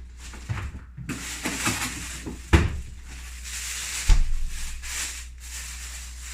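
Hands rummaging in a fridge, with two solid knocks from the fridge, about two and a half and four seconds in.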